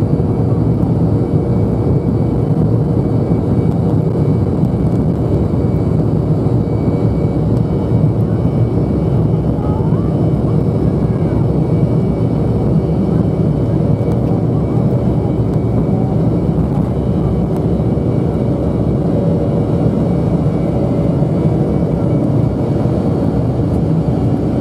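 Cabin noise of an Embraer E190 taxiing at low power: its two CF34 turbofan engines running steadily, a dense even rumble with a faint steady hum through it, not changing in loudness.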